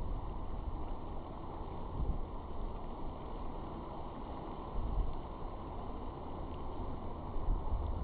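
Wind buffeting the microphone in uneven gusts over the steady rush of surf breaking on the beach.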